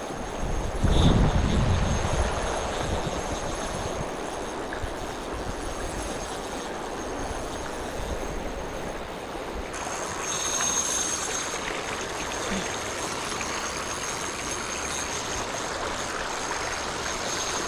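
Steady rush of flowing river water, with a low rumble on the microphone for a couple of seconds near the start.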